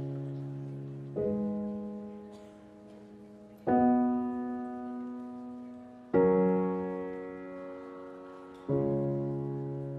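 Slow piano music: a chord struck about every two and a half seconds, each one ringing and fading before the next.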